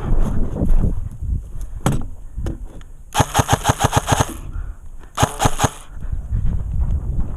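Airsoft gun firing two full-auto bursts, one of a little over a second and a shorter one about a second later, at roughly ten shots a second, after a single shot near the start.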